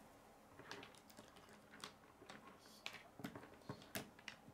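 Faint, irregular clicks and taps of plastic K'nex rods and connectors being handled and fitted together, about eight or nine in all, the sharpest near the end.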